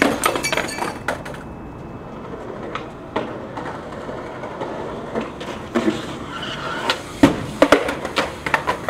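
Skateboard wheels rolling on a concrete sidewalk, with a quick run of clacks in the first second and scattered sharp board knocks and clacks later, the loudest about seven seconds in.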